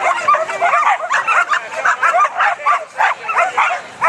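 Dogs barking and yipping excitedly in a dense, overlapping string of short barks, the noise of flyball dogs held back at the start of a race.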